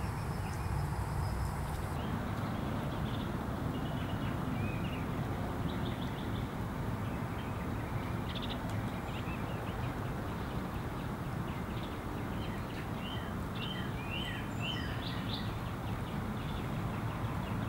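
Steady low outdoor background rumble with small birds chirping short calls now and then, more of them in the second half.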